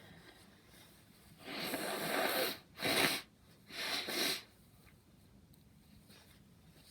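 Three loud, breathy bursts of air through the nose from a person who is very stuffy after a sneezing session: a longer blast about a second and a half in, a short sharp one that is the loudest, then a third just after.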